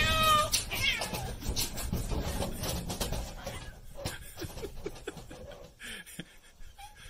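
A cat meows twice in the first second, then comes an irregular run of clicks and clacks from the plastic cat flap as several cats push through it one after another, thinning out toward the end.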